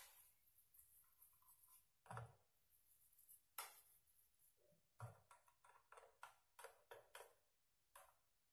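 Faint scrapes and taps of a spoon in the bowl of a small electric food chopper, working minced beef down from the sides. They come as a few scattered clicks, then a quick run of about three a second a little past the middle.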